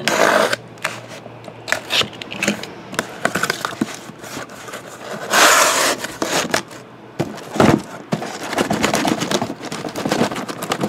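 A cardboard shipping case being opened by hand: a box cutter slitting the packing tape near the start, then cardboard flaps scraping and rustling, with a loud scrape about halfway through and a sharp knock a couple of seconds later. Shrink-wrapped card boxes slide and knock as the case is pulled up off them near the end.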